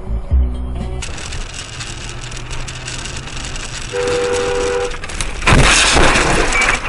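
Vehicle road noise, then a horn sounding two steady notes for about a second, followed half a second later by a loud crash lasting over a second.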